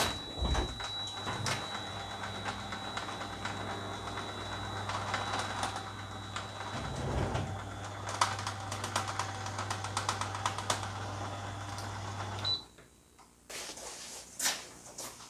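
Electric opener raising an up-and-over garage door: a steady motor hum with rattling and clicking from the door mechanism, which cuts off suddenly about twelve seconds in. A few clicks and knocks follow near the end.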